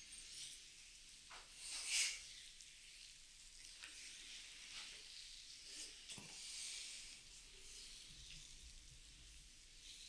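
Hands sliding and rubbing over skin in massage strokes: a soft swishing friction. The loudest stroke comes about two seconds in.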